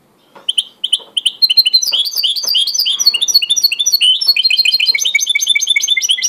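White goldfinch × canary hybrid (a 'mixto') singing: a fast, unbroken run of chirps and trills that starts about half a second in.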